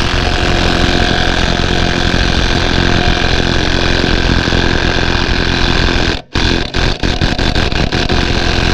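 Cordless impact wrench hammering hard on a seized lug nut that will not break loose. It runs continuously, stops about six seconds in for a few short trigger bursts, then hammers on steadily.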